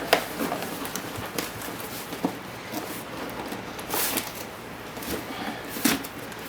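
Retail packaging of a drone being handled and pried at: scattered clicks, knocks and short rustling scrapes, with a louder rustle about four seconds in and another near the end.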